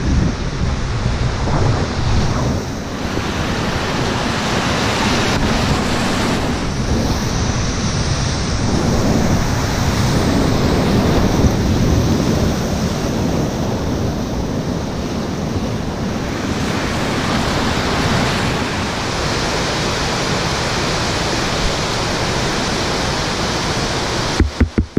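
Whitewater rushing and churning around a small inflatable raft as it runs a rapid, with wind buffeting the microphone. The roar drops off abruptly near the end, followed by a quick string of short pulses.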